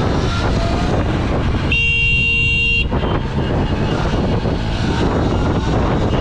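Steady wind and road rumble from riding in traffic. About two seconds in, a horn sounds one steady honk of about a second.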